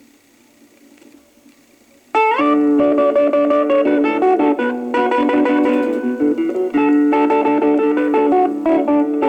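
Record playback of an electric guitar instrumental: about two seconds of faint surface hiss, then the guitar melody starts suddenly with an upward slide and runs on as plucked notes.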